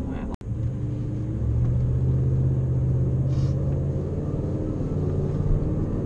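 Car engine and tyre noise inside the cabin while driving at road speed: a steady low drone. It drops out for an instant about half a second in.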